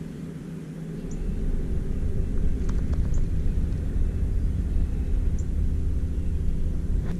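Low, steady hum of a boat motor, getting louder about a second in, with a few faint clicks over it.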